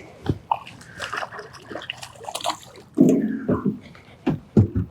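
Water splashing and sloshing as a small redfish is landed and handled, with several sharp knocks and a louder scuffling burst about three seconds in.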